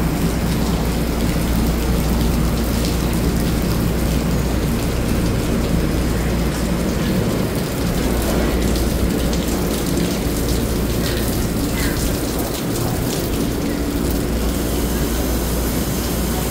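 Steady rain falling on a station platform, with the constant low hum of an electric multiple-unit train standing at the platform.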